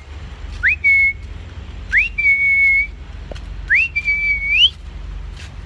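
A man whistling to call a dog, three times: each whistle swoops up and then holds one note, and the last one rises again at its end.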